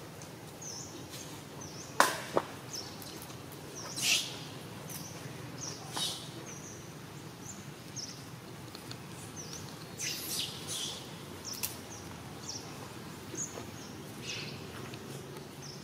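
Many short, high chirps, one or two a second, with several sharp clicks and brief rustling noises among them; the loudest click comes about two seconds in.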